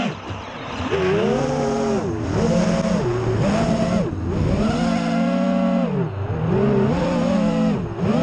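FPV racing quadcopter's motors and propellers whining, the pitch rising and falling with the throttle and dropping off briefly about every two seconds.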